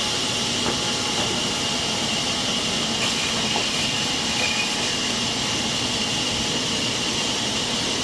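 Sawmill saw running steadily, a continuous loud mechanical hiss with a constant high whine.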